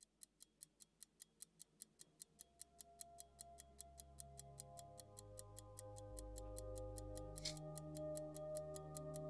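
IWC Pallweber pocket watch ticking faintly and evenly, about five ticks a second, while music with long held notes swells in underneath. Near the end there is one fuller click as the minute disc jumps from 47 to 48.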